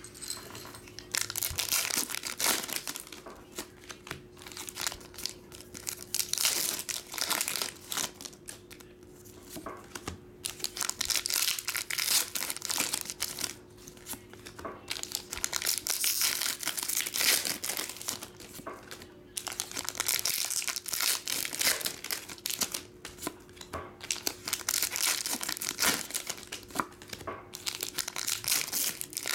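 Plastic shrink-wrap being torn and crinkled off sealed trading-card boxes, in repeated bursts of rustling, with a faint steady hum underneath.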